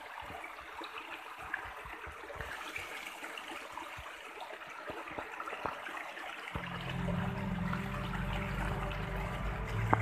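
Shallow stream running and trickling over rocks. Background music comes in about two-thirds of the way through.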